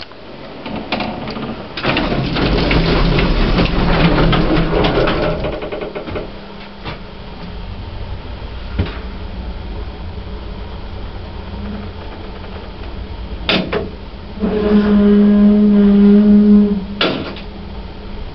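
Lift machinery in operation, on a lift probably originally a 1960s J&E Hall with mixed later parts. A few seconds of rattling and clicking come first, then a steady low hum with occasional clicks. Near the end a sharp click starts a loud buzzing hum that lasts about two and a half seconds and stops with another click.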